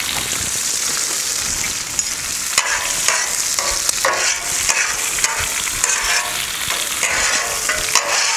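Butter and olive oil sizzling on a hot Blackstone flat-top griddle. From about two and a half seconds in, a metal spatula scrapes across the steel plate in repeated short strokes, spreading the melted butter.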